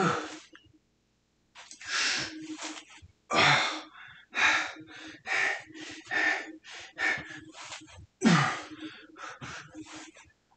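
A man breathing hard in quick, noisy huffs, about one a second, from the effort of a long set of squats, with a short grunt at the start and again about eight seconds in.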